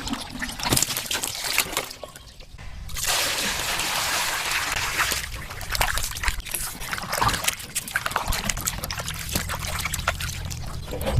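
Water sloshing and splashing, with many sharp clicks and knocks. The sound is sparse at first, then about three seconds in becomes a dense, steady hiss of splashing.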